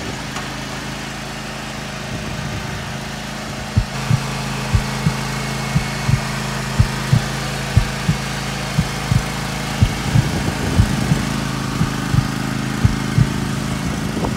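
John Deere lawn tractor engine running at a steady speed as the tractor is driven down trailer ramps. From about four seconds in there are repeated short, low thumps, roughly two a second.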